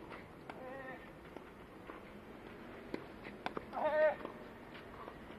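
Tennis ball being struck and bouncing on the court, a series of short sharp pops about a second apart, with a short high wavering vocal cry about four seconds in and a fainter one near the start.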